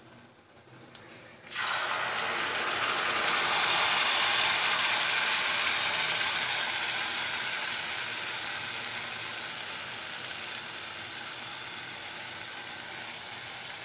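Sizzling of boiled, ground tomato-cashew paste poured into hot ghee and fried onions in a kadai. It starts suddenly about a second and a half in, is loudest a few seconds later, then slowly dies down.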